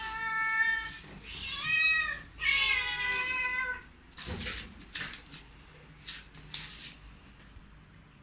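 A domestic cat meowing three times in long, drawn-out calls, followed by a few short noises.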